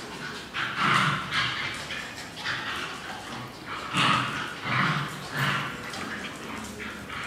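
A Shih Tzu and a mixed-breed dog play-fighting, with a quick string of short barks and yaps.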